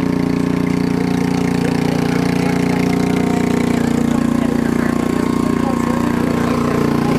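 An engine idling steadily, a constant hum that does not change in pitch or level.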